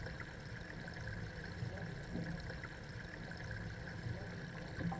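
Faint, steady rush of running water with a low hum underneath.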